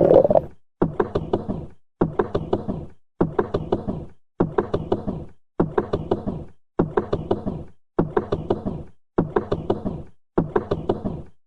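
Stomach gurgling: a short run of small pops and clicks that fades out, repeated nine times about every 1.2 seconds with dead silence between the bursts.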